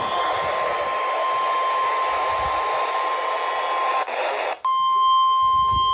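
NOAA Weather Radio warning alarm tone: a single steady high tone near 1050 Hz announcing a tornado warning, first heard over radio hiss. About four seconds in it breaks off briefly, then resumes cleaner and a little louder.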